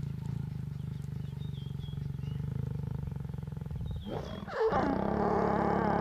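Lions growling while mating: a low, pulsing growl, then about four and a half seconds in a sudden louder, harsher growl that carries on.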